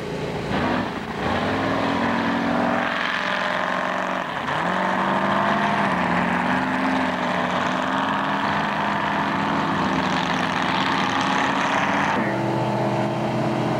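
Race boat engines accelerating hard from a standing start, then running at a steady high pitch, with a brief dip and climb in pitch about four and a half seconds in. Near the end the sound changes abruptly to a different, steadier engine note.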